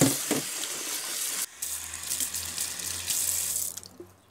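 Tap water running and splashing into an enamel pot in a stainless-steel sink, with a couple of knocks as it starts. The flow stops shortly before the end.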